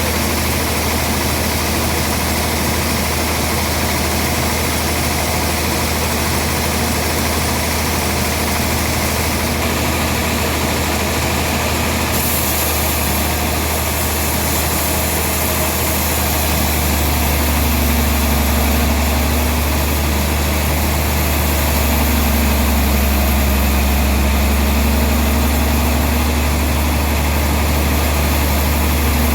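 A heavy engine running steadily, growing slightly louder about two-thirds of the way through.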